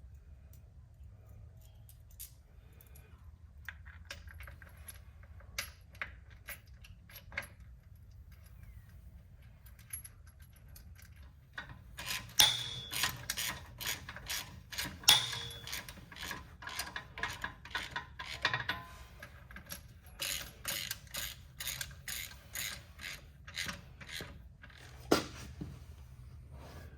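Hand ratchet wrench clicking in quick runs as bolts are turned, with scattered clinks of metal tools. The fast clicking starts about halfway through, pauses briefly, and a single louder knock comes near the end.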